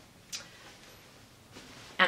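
Quiet pause while clothes are handled: one brief click about a third of a second in, and a faint rustle near the end.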